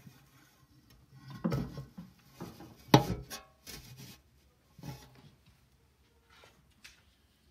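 Footsteps and the knocks and scrapes of a large wooden cross being carried and set down. The loudest is a single sharp knock about three seconds in, and the sounds thin out after about five seconds.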